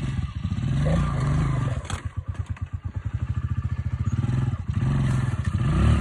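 Honda CRF125 dirt bike's single-cylinder four-stroke engine running at low revs and blipped up several times. Around the middle it slows so that its separate firing pulses come through, and it picks up again near the end.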